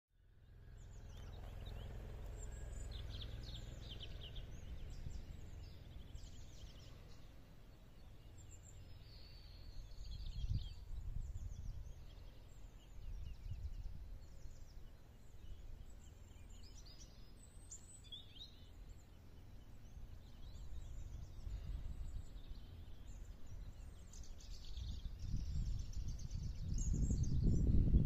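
Outdoor ambience fading in over the first second: a gusty low rumble of wind on the microphone, swelling near the end, under scattered chirps and twitters of small birds.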